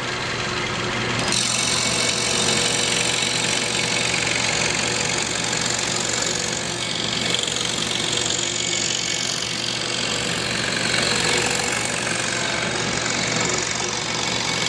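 Excalibur scroll saw running with its blade cutting a thin wooden board: a steady mechanical hum, with the hiss of the cut growing stronger about a second in.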